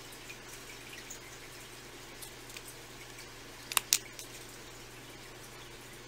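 Scissors snipping the thin excess resin from the edges of a cast resin leaf: two quick sharp snips close together, with a few faint clicks around them over a low steady hum.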